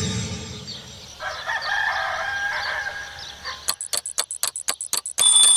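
A rooster crows once. Then a twin-bell mechanical alarm clock rings in rapid, evenly spaced strikes, about seven a second, for a second and a half, and cuts off suddenly.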